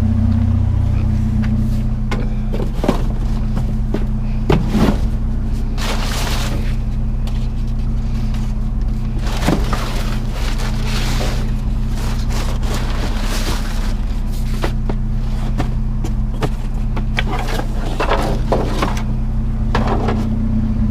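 Vehicle engine idling steadily, with scattered knocks, clatter and rustling of junk being handled and sorted.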